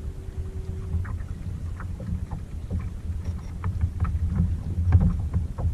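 Wind rumbling on the microphone over water lapping and splashing against a kayak, with small scattered drips and splashes.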